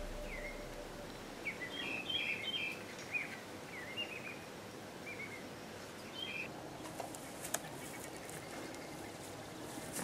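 Small birds chirping in the bush: short, quick chirps and calls scattered through the first two-thirds, over a faint steady hiss. A couple of faint clicks near the end.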